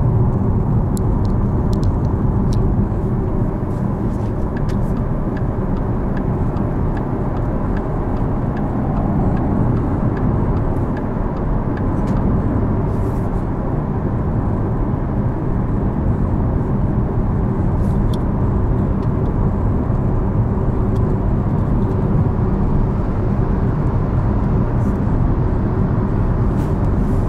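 Porsche Taycan Turbo S cruising at a steady speed, heard inside the cabin: an even tyre and road rumble with no engine note.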